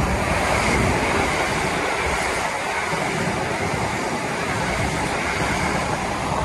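Seven-carriage Hitachi Class 385 electric multiple unit passing through a station at speed without stopping: a steady, loud rush of wheel and rail noise and air as the carriages sweep past close by.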